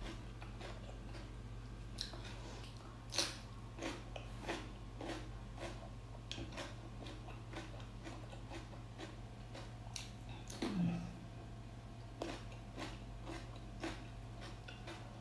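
A person eating close to the microphone: chewing and biting food, with irregular sharp crunches and clicks, over a steady low hum.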